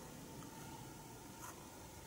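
Quiet room with a faint steady hum, a small click at the start and one brief light scrape about one and a half seconds in, from a circuit board being shifted under a digital microscope.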